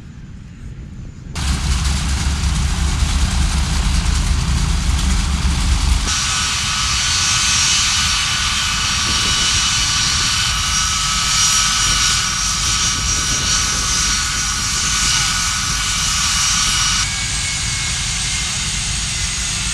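Loud aircraft engine noise in several cut-together shots: a deep rumble, then from about six seconds in a steady high whine of several tones over the noise, which stops abruptly near the end.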